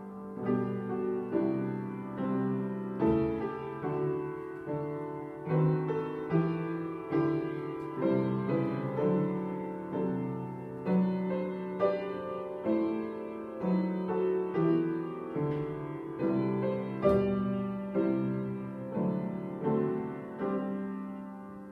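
Piano music: a steady stream of struck notes and chords, about one or two a second, each ringing and fading.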